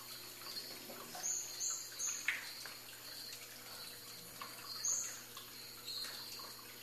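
Short, high-pitched chirps of calling night animals, scattered singly and in quick pairs, over a faint steady hum. A brief tap sounds about two seconds in.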